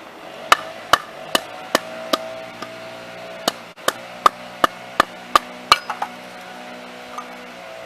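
Firewood being split by batoning: a piece of wood struck with sharp, evenly paced whacks, about two and a half a second, in two runs of five and seven strikes with a pause between.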